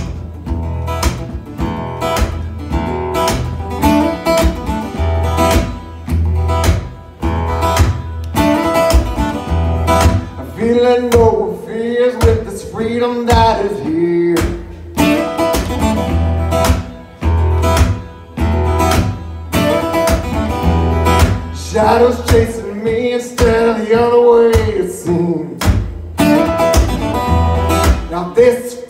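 Live acoustic guitar strummed in a blues-rock song over a steady low bass pulse, with a sung melody in two stretches, about a third of the way in and again past the middle.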